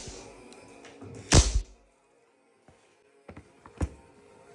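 Dan Wesson 715 CO2 revolver firing: a loud sharp crack about a second and a half in, then small clicks and a second, weaker crack near the end, over background music.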